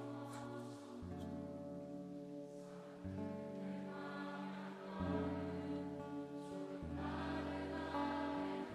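Slow background music of sustained chords, changing about every two seconds.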